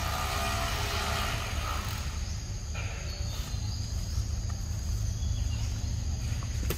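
Outdoor ambience: a steady low rumble with a thin, steady high-pitched insect drone over it.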